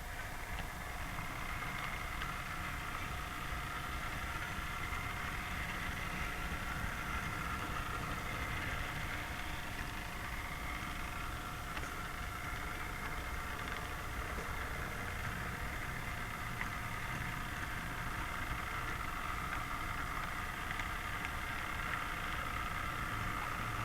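Model train running on its track: a steady motor whine with wheel rumble from the rails.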